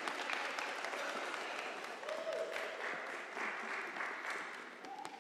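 Congregation applauding, the clapping thinning out and dying down near the end.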